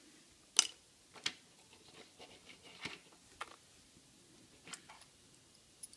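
Scattered small clicks and taps from handling the metal chassis and tiny parts of an N scale model locomotive on a wooden tabletop, about seven in all, the sharpest about half a second in.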